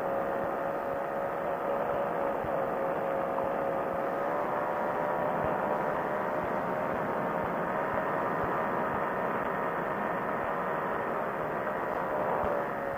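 Quicksilver Sprint ultralight's two-stroke engine and propeller running steadily in flight, with wind rushing over the open airframe. The engine note dips slightly in pitch about a third of the way in.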